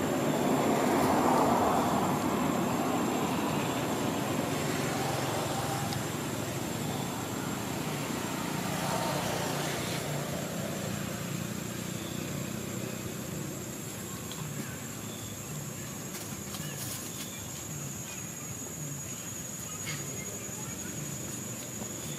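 Steady outdoor background noise that swells twice, in the first few seconds and again about nine seconds in, with a thin high steady tone throughout.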